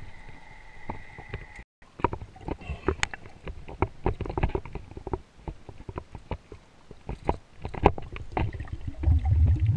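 Underwater handling noises: scattered clicks and knocks as a diver's hands work grey mullet onto a stringer line, with a louder low rumble near the end. A steady high whine in the first couple of seconds cuts off suddenly at a brief dropout.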